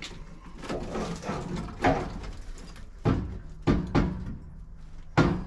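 Heavy knocks and clanks on an old welded steel barbecue frame as it is being broken apart, about five irregular blows with a short metallic ring after each.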